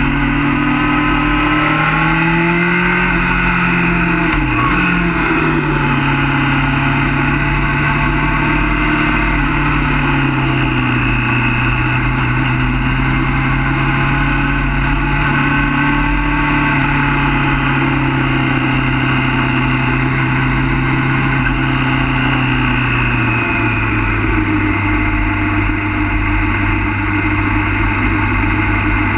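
A 2007 Yamaha FZ6's inline-four engine heard from on board at steady part throttle through bends, its pitch rising and falling gently. There is a brief dip as the throttle is rolled off about four seconds in, and a step down to a lower note near the end, with wind rumble on the microphone underneath.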